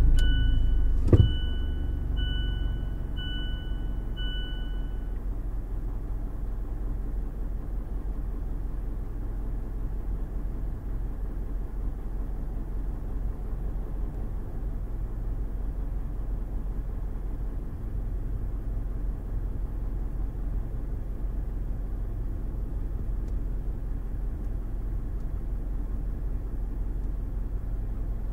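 Mazda CX-5 engine heard from inside the cabin, idling steadily right after starting, a little louder for the first second or two before settling. A sharp click comes about a second in, and a two-tone dashboard chime sounds five times, about once a second, over the first few seconds.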